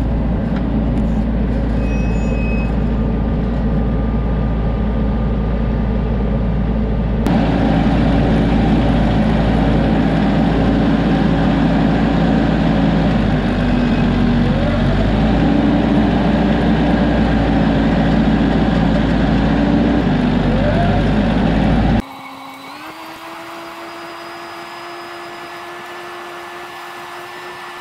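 TYM 574 compact tractor's diesel engine running steadily under load while pulling a 10-wheel V hay rake through cut hay. The sound changes abruptly twice, a little louder about seven seconds in, then much quieter near the end with a steady hum that rises slightly in pitch.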